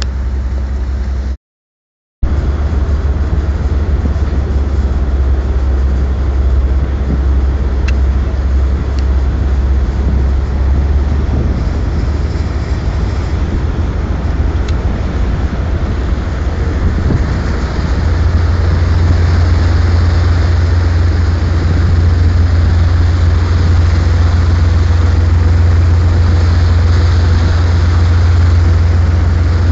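Heavy diesel engine of a harbour tug running with a steady deep drone over water and wind noise. About two-thirds of the way through it throttles up, and its pitch and loudness step up and hold. The sound cuts out for under a second near the start.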